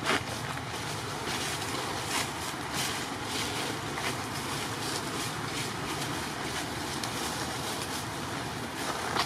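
Steady outdoor wind-like rushing noise, with scattered short crackles of dry leaf litter as macaques move over it.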